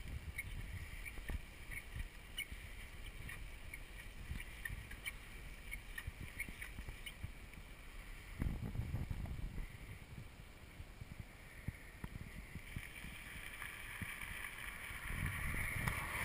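Wind buffeting the microphone of a camera carried on a moving bicycle, with low rumbling gusts that swell about eight seconds in and again near the end. Faint clicks from the bike are scattered through it, and a hiss rises in the last few seconds.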